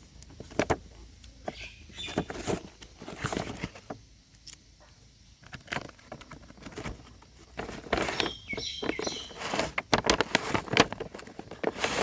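Toy truck packaging being handled and opened: scattered clicks and taps with crinkly rustling, denser and busier in the last few seconds.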